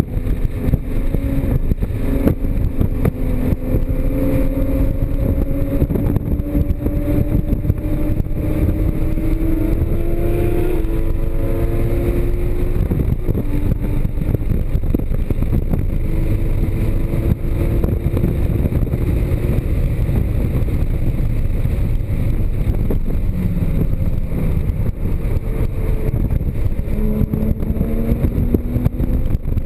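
Porsche Cayman GTS flat-six engine pulling at speed on track, its pitch climbing steadily for about twelve seconds, then dropping back and varying as the car works through the next section, under heavy wind and road noise.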